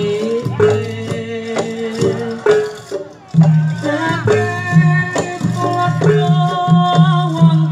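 Javanese jaranan music with drums and percussion under a sustained melody. It drops away briefly about three seconds in, then starts again.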